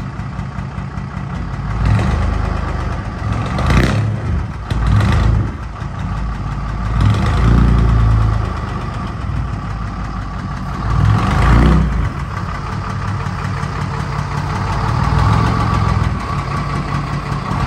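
GMC Toroflow DH478 V6 diesel running through 3-inch straight pipes, revving up and easing off in several surges as the truck pulls another truck on a tow strap.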